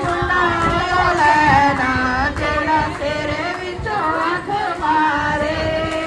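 A woman singing a Punjabi boli (folk couplet) solo into a microphone, holding long notes that bend in pitch.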